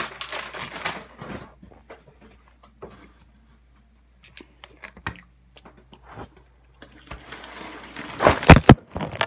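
Scattered small knocks and clicks, then loud rustling and handling noise close to the microphone near the end.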